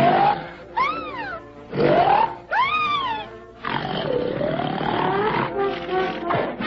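A series of loud snores, about six rasping breaths, two of them with a whistle that rises and then falls in pitch, over background music.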